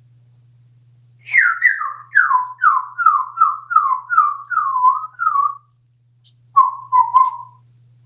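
African grey parrot whistling a quick run of about a dozen short notes, each sliding down in pitch, then after a brief pause three more whistled notes with a few clicks near the end.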